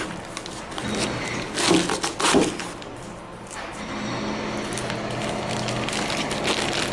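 A sneaker being handled as its insole is pulled out: short rubbing and scraping sounds, loudest about two seconds in, over a steady low hum.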